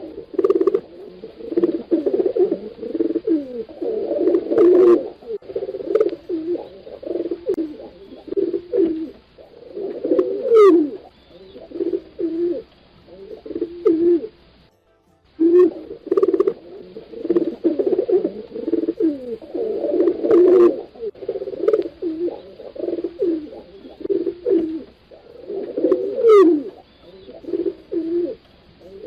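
Several domestic pigeons cooing over one another in repeated low, rolling coos. A thin falling chirp is heard twice. The sound cuts out briefly about halfway and the same stretch of cooing starts over, as a loop.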